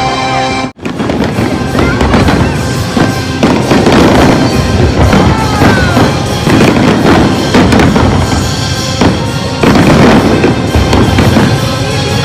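Fireworks display: many aerial shells bursting in quick succession, with bangs and crackling, over music. The sound cuts out briefly under a second in, then the bursts run on.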